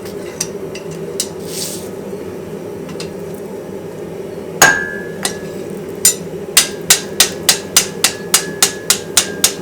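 Hammer blows on hot steel on an anvil: one heavy strike, a lighter one, then a steady run of about three blows a second, each leaving a short high ring from the anvil. A steady low hum runs underneath.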